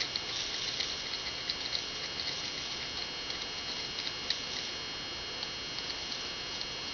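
Faint, irregular small ticks and light clicks of small parts and tools being handled at a workbench, over a steady hiss with a thin high whine.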